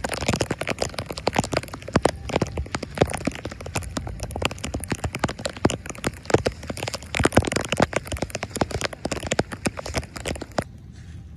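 Rain pattering close by, a dense run of irregular crackling ticks, stopping abruptly near the end and leaving a faint hiss.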